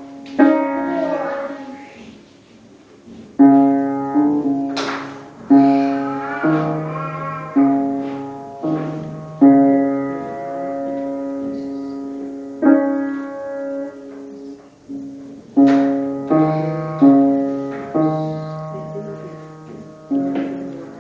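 Piano playing a slow piece: chords struck one after another, each left to ring and fade.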